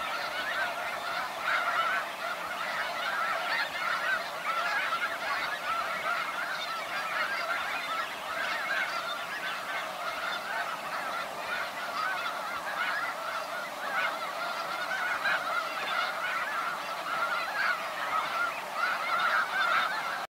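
A large flock of snow geese calling: a dense, unbroken chorus of many overlapping honks.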